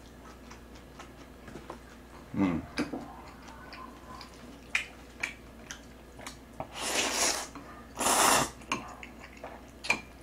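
Close-up eating sounds of jjajang ramen noodles: chewing and small clicks of chopsticks against a bowl, with two longer slurps of noodles about seven and eight seconds in.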